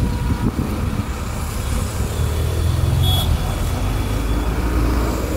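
Road traffic with a steady low vehicle rumble, and a short high-pitched tone with a hiss about three seconds in.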